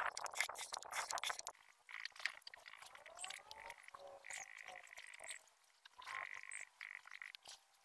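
Rough rubbing strokes of a hand sanding the cabinet surface for the first second and a half, then a small paint roller squeaking in short repeated squeals as it is rolled back and forth over the panel.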